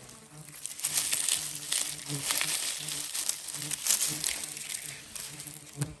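Footsteps crunching and rustling through dry grass and forest litter at a steady walking pace, with crackling from stems and twigs underfoot.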